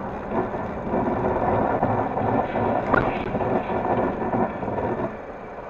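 Car cabin noise from a dash cam on a packed-snow road: steady engine and tyre rumble that eases off sharply about five seconds in, with one short sharp click near the middle.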